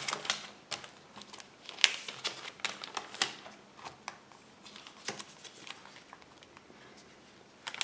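Clear plastic pocket pages of a trading-card binder crinkling and rustling as a page is turned and cards are pressed into their pockets. Scattered small crackles, with a few sharper ones about two, three and five seconds in.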